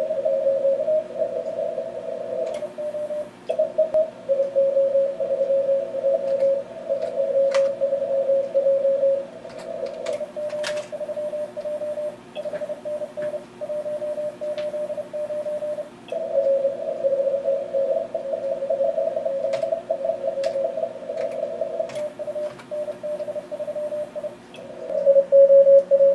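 Morse code contest exchanges from an Elecraft K3 transceiver: rapid keyed tones near 600 Hz, some at a slightly lower, louder pitch and some at a slightly higher one, over steady band-noise hiss, with a few faint clicks.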